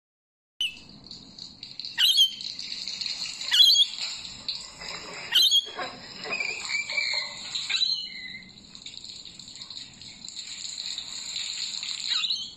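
Rainbow lorikeet chattering steadily in a high, scratchy stream, broken by three sharp screeches about two, three and a half and five and a half seconds in.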